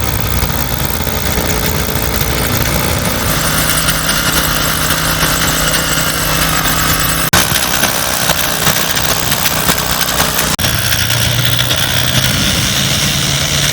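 An engine running steadily at idle, with a low, even hum. It drops out for an instant twice, and its tone shifts a little after each break.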